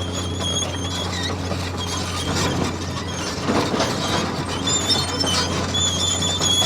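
Radio-controlled toy bulldozer running, its small electric drive giving a steady low hum under a thin high whine that drops out and returns several times.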